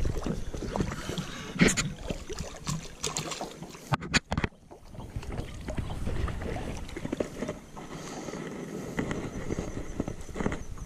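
A hooked bass splashing at the water's surface as it is played toward a fishing boat, over wind rumbling on the microphone. A few sharp knocks stand out, the loudest pair about four seconds in.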